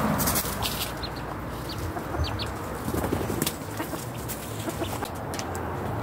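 Young chicken being handled: wings flapping and feathers rustling against a jacket, with scattered clicks. A few short high bird chirps come about one to two and a half seconds in.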